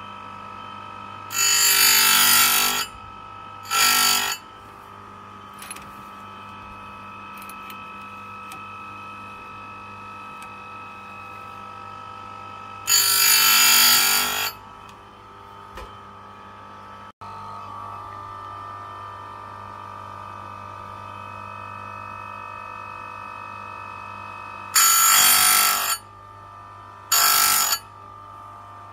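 Oregon Jolly electric chain grinder running with a steady motor hum and whine, its grinding wheel biting into chainsaw cutter teeth in five loud grinding strokes, in three groups about eleven seconds apart, as the chain is sharpened tooth by tooth.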